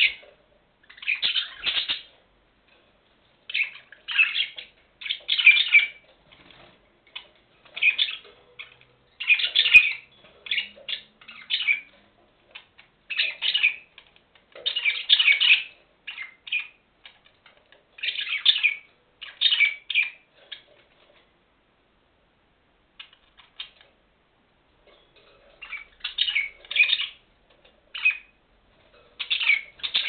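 Budgerigars chirping and chattering in short bursts every second or two, with a quiet spell of a few seconds about two-thirds of the way through.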